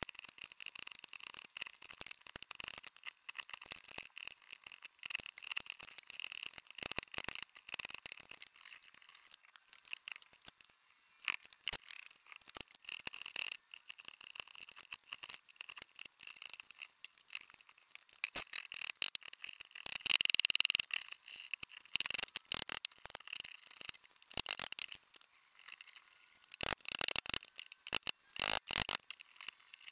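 Hand chisel paring the end grain of elm dovetails: a run of irregular short scraping strokes and clicks. The strokes come denser and louder about two-thirds of the way through.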